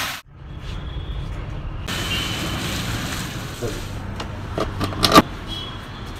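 Steady low background rumble, with a few sharp plastic clicks and knocks about four to five seconds in, the loudest near the end, as a control valve head is handled and fitted onto the top of a water softener's resin vessel.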